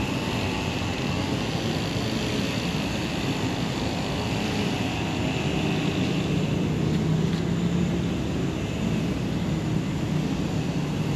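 Steady road traffic noise from cars passing on a multi-lane city street, with one vehicle's engine hum swelling about five to nine seconds in.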